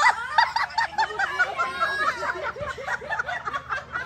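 A group of people laughing and calling out over one another.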